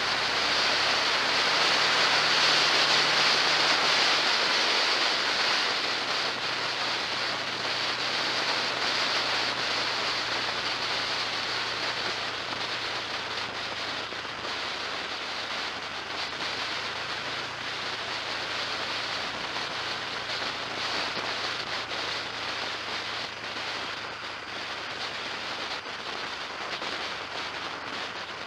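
Steady rush of wind and road noise from a vehicle travelling at speed, with a faint low engine hum underneath. It is loudest in the first few seconds, then eases slightly.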